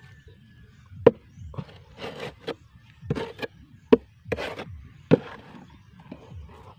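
Small hand hoe chopping and scraping loose, dry soil in a planting hole. Three sharp knocks of the blade come about a second, four seconds and five seconds in, with scraping strokes through the dirt between them.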